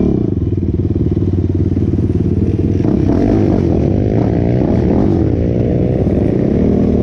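Single-cylinder four-stroke sport quad engine running under throttle as it is ridden, its pitch rising and falling with the throttle, heard from the rider's seat.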